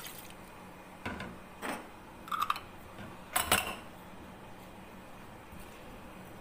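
Water pouring into an aluminium pressure cooker stops at the start. Then come a few light knocks and clinks of kitchenware, one with a short ring, the loudest about three and a half seconds in, over a faint steady hum.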